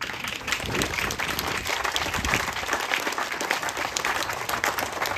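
A crowd applauding: many hands clapping, breaking out suddenly and holding steady.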